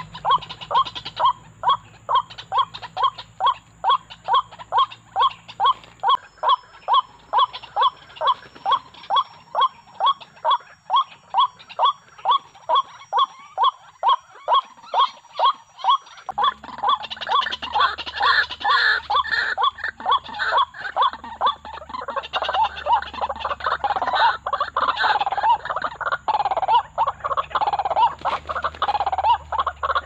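White-breasted waterhens calling: a steady, evenly repeated run of calls, about two a second, that turns about halfway through into a denser, overlapping jumble of calls.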